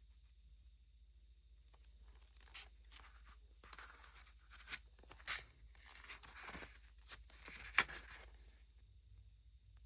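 Packaging being handled during an unboxing: a run of short rustling and tearing sounds, ending with one sharp click near the end.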